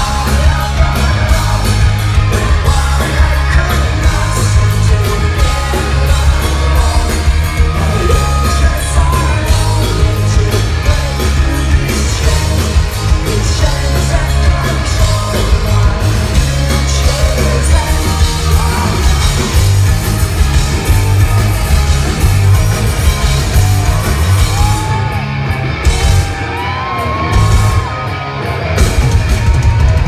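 Punk rock band playing live, heard loud from inside the crowd: electric guitars, bass and drums, with singing and yells from the crowd. Near the end the drums drop out for a few seconds while bending notes ring, and then the full band comes back in.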